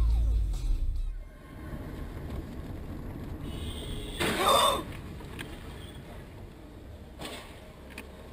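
Car collision at a junction ahead of the recording car: one short, loud crash about four seconds in, and a fainter knock about three seconds later, over the steady hum of engine and road noise inside the recording car. A loud low rumble fills the first second.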